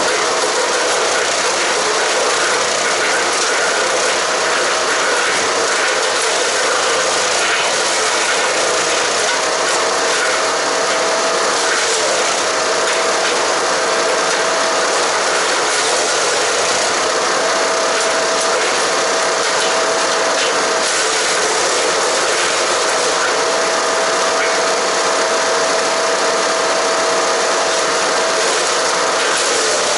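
Haige HG-15HP-GGS 15-horsepower wood chipper running and chipping cedar and cypress branches: a loud, steady, dense crackling grind, with a whine that comes and goes.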